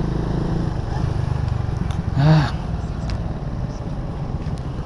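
Euromarvel 130i motorcycle engine running steadily at low speed in town traffic. About two seconds in there is a brief voice-like sound.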